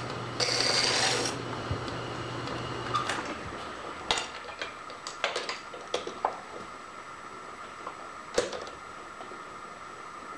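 A shop machine runs with a low hum and a short burst of cutting hiss in the first second or so. The hum stops about three seconds in, leaving a steady whine. This is followed by a series of light, sharp metallic clicks and clinks of small metal parts being handled, the loudest near the end.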